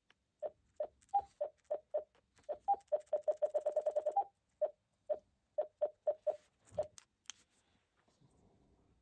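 TYT MD-9600 radio running OpenGD77 firmware giving short mid-pitched key beeps as its buttons are pressed. The beeps come one at a time, with a fast run of about a dozen in a row in the middle and a few higher beeps among them. A couple of sharp clicks come just before the end.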